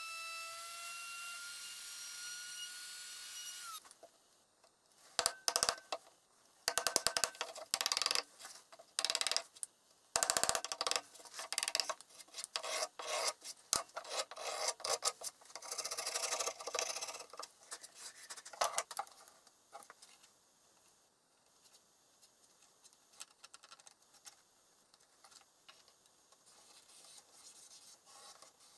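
A plunge router's motor runs with a steady high whine that cuts off abruptly about four seconds in. Then a steel chisel scrapes and pares out a routed recess in chipboard in uneven bursts of rough strokes, which die away to faint handling noise for the last several seconds.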